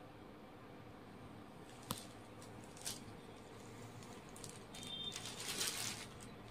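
Faint handling noise as a saree is shown: a couple of light clicks about two and three seconds in, then a brief rustle near the end.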